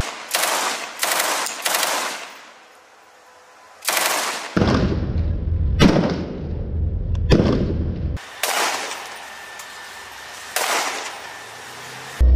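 Small-arms gunfire from soldiers' rifles and a machine gun: irregular single shots and short bursts, each trailing off in an echo, with a lull of about two seconds a couple of seconds in.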